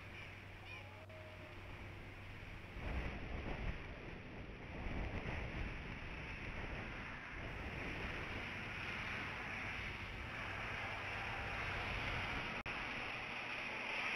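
Wind and rain on an outdoor camera microphone: a steady rushing noise that gets louder about three seconds in. There is a brief click and dropout near the end.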